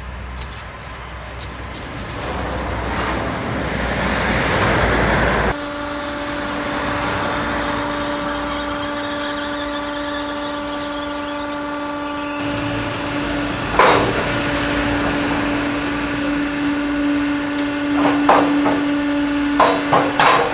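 Tyre baler machinery running: a rising rush gives way abruptly to a steady mechanical hum, with a few sharp knocks and clanks in the second half.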